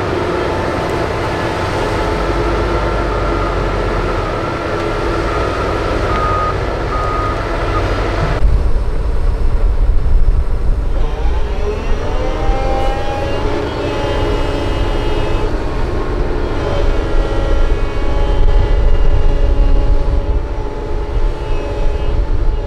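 Diesel engine and hydraulics of a Doosan DX225LCA excavator working, with a steady whine. After an abrupt cut about eight seconds in, a loaded dump truck's diesel engine pulls away, its pitch rising and falling as it revs and shifts.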